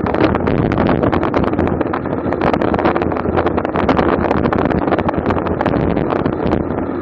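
Wind buffeting the microphone of a camera mounted on a racing bicycle at speed: a loud, continuous rush with constant irregular gusty thumps.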